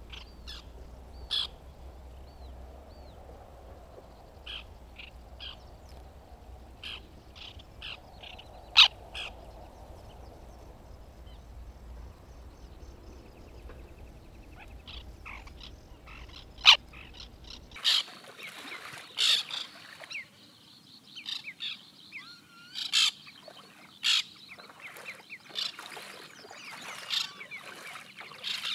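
White-winged terns calling at the nesting colony: short, sharp calls, scattered at first over a low wind rumble. About eighteen seconds in, the rumble stops abruptly and the calls come thicker and louder.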